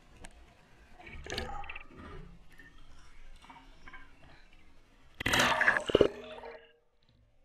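Seawater lapping and splashing against a waterproof action camera held at the surface, with a loud splash about five seconds in as the camera dips under, after which the sound turns muffled and quiet.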